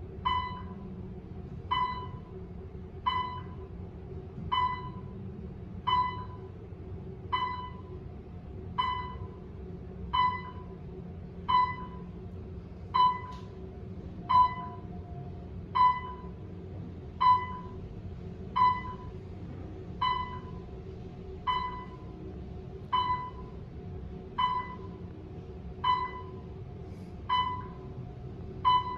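Otis elevator car's floor-passing chime, one short ding for each floor as the car climbs, about every 1.4 seconds, over the steady low hum of the moving car.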